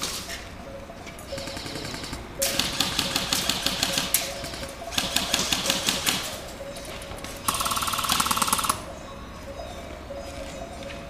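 Airsoft electric rifles firing in rapid full-auto bursts: three bursts of fast clicking shots, a couple of seconds apart, the last with a higher whine under it.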